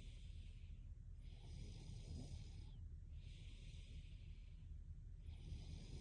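A sleeping woman breathing slowly and evenly: hissy breaths in and out, each about a second and a half, with short pauses between, over a steady low hum.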